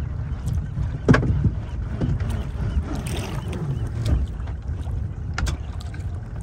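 Small boat on the water: a steady low rumble with wind on the microphone, and a few sharp knocks, the loudest about a second in.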